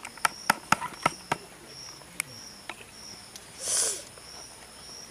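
A weeping old woman: a quick run of sharp clicks, then a loud wet sniff just under four seconds in. Insects chirp in a steady repeating beat behind.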